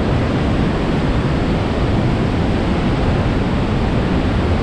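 Steady rushing noise of Augrabies Falls on the Orange River in flood, a large volume of water pouring over the rock cliffs.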